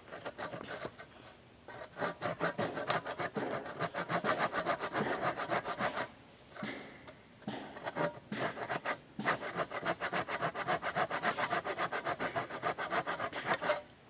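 Hand saw cutting through a dead log in fast back-and-forth strokes, with a break of about a second and a half six seconds in and a brief one near nine seconds.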